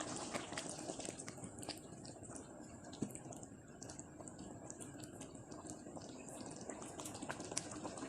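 Faint, irregular small clicks and ticks over low room noise.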